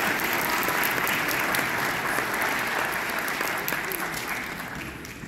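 Audience applauding, tapering off toward the end.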